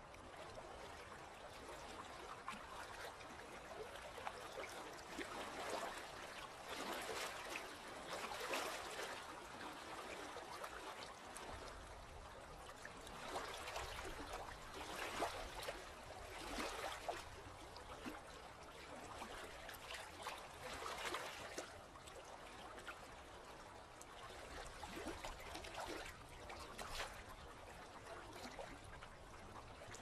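Small ripples of calm sea water lapping and trickling close to the microphone, faint and swelling every few seconds.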